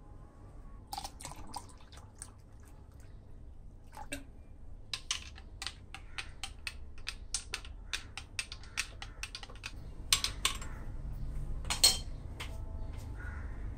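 A metal spoon stirring sherbet in a glass jug, clinking against the glass in a rapid run of sharp ticks, about three or four a second, loudest near the end.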